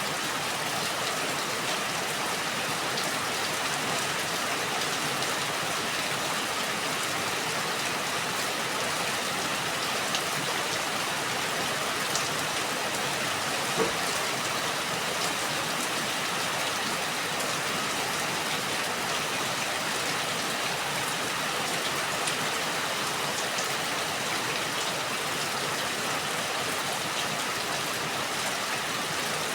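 Steady rain falling, with scattered individual drops ticking and one sharper drop about halfway through.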